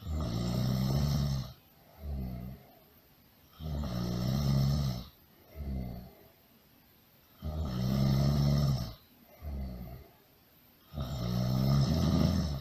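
Loud, rhythmic snoring from a sleeping person. Each cycle is a long, rasping snore of about a second and a half followed by a shorter, quieter one, repeating roughly every three and a half seconds, with four long snores in all.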